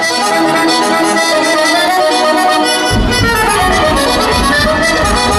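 Accordion-led folk music with steady held chords; a bass line comes in about three seconds in.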